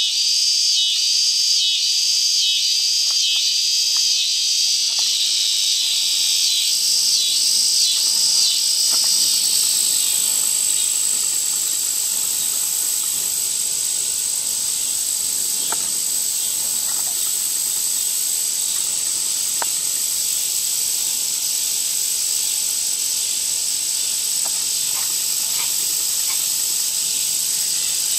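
Dense insect chorus: a steady, high-pitched shrill trilling. For roughly the first ten seconds a second, rhythmically pulsing chorus sits over it, then fades out. A few faint chirps are scattered through.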